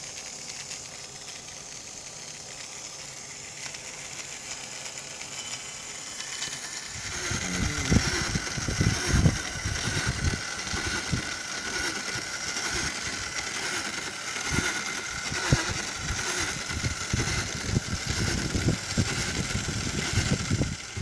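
Small electric motor driving a tricycle's front tyre through a roller pressed against it: a friction drive running. A quieter steady hum comes first; about seven seconds in it grows louder, into a steady whine with irregular rubbing knocks from the roller on the tyre.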